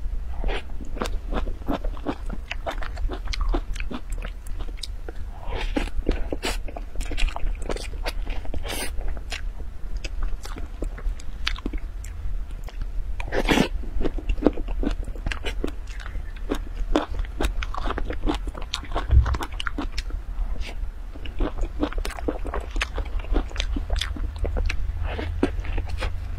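Close-miked eating of soft cream cake from a spoon: chewing with wet mouth clicks and lip smacks, one sharper knock about halfway, over a steady low hum.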